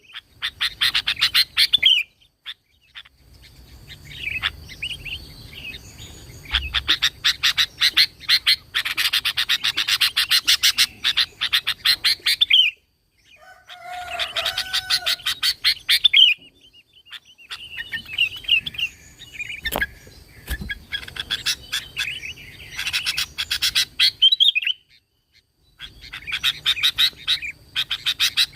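Sooty-headed bulbul (kutilang) singing in bouts of rapid chattering notes, several bouts broken by short pauses.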